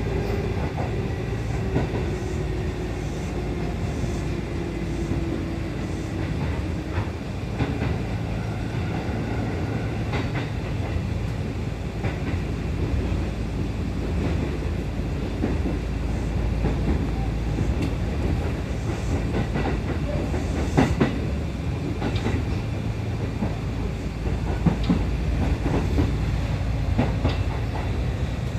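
Kintetsu electric train running on the rails, with a steady rumble and clicks of the wheels over rail joints. A motor whine falls slowly in pitch over the first several seconds as the train slows for its stop.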